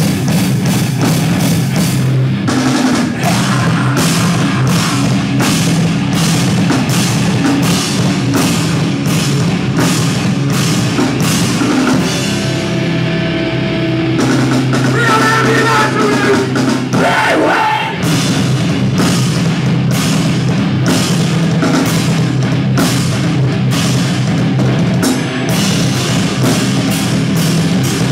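Live heavy rock band playing loud: distorted electric guitars over a drum kit hit hard and fast. About twelve seconds in the drums drop back for a few seconds while the guitars ring on, then the full band comes back in.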